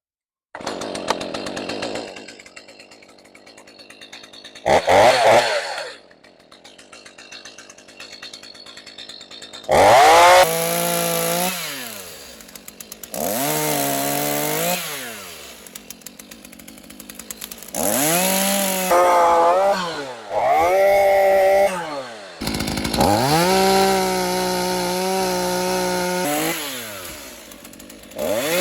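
New Stihl MS 212 two-stroke chainsaw running at a low, uneven idle with one short rev. About ten seconds in, it is revved hard in repeated bursts of a few seconds each, the pitch climbing at each squeeze of the throttle and dropping away between them.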